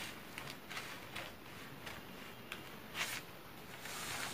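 Scissors snipping through a paper pattern sheet, with a short crisp snip every half second or so. The loudest is about three seconds in, followed near the end by a longer rustle of the stiff paper being handled.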